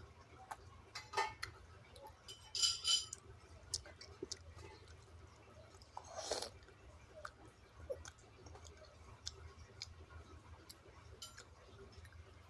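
Close-miked chewing and eating: soft wet mouth clicks throughout, with louder crunchy bursts about a second in, around two and a half to three seconds in, and about six seconds in, over a low steady hum.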